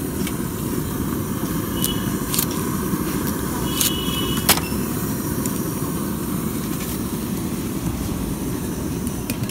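Steady low rumble of street background noise, with a few sharp clinks of steel utensils against steel pots, the loudest about four and a half seconds in.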